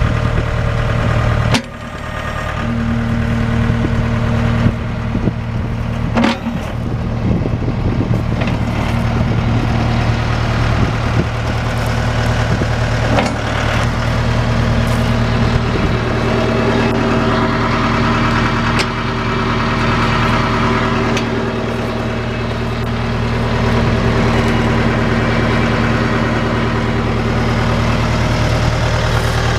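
Mahindra 1533 HST compact tractor's diesel engine running steadily at idle, with a brief dip in level about a second and a half in and a few sharp clicks.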